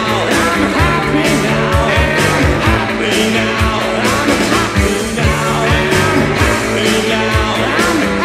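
A 1980s rock band recording playing: a steady drum beat with a sustained bass line and guitar.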